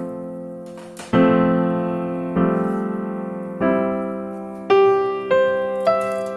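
Background piano music: slow chords struck about once a second and left to ring and fade.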